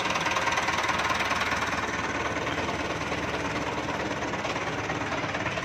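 A 1996 Massey Ferguson 375 tractor's Perkins diesel engine idling steadily.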